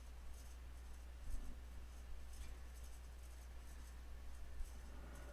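Low room tone with a steady low electrical hum, and faint scratchy rubbing and light clicks here and there from a computer mouse being moved and clicked on a desk.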